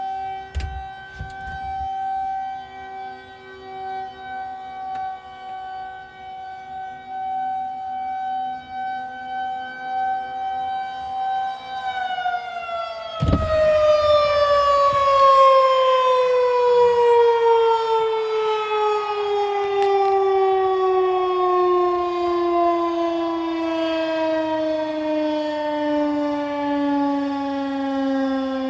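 Federal Signal 2001-130 rotating electromechanical warning siren sounding a steady single tone, its loudness wavering. About twelve seconds in it begins winding down, the pitch falling slowly and smoothly. A short thump comes just after the wind-down starts, and the siren is louder from then on.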